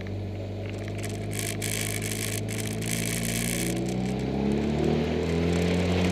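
Caterham Super Seven engine running at low revs, picked up close from the bonnet, with a rushing hiss over it that stops a little past halfway. From about four seconds in, the engine note climbs steadily as the car accelerates.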